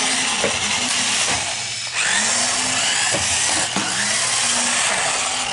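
Small electric drive motors of two remote-control Speed Bumpers bumper cars whining as they drive over a wooden floor. The pitch wavers as they speed up and slow down, and the sound drops briefly about two seconds in and again near four seconds.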